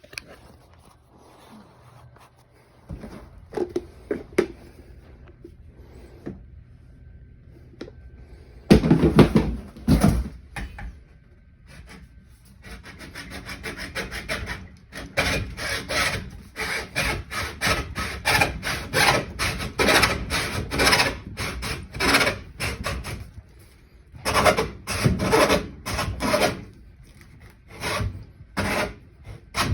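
Hand-tool work on the sewage pump plumbing: a couple of knocks, a loud clatter, then long runs of rhythmic rasping strokes, about two or three a second, with short pauses between runs.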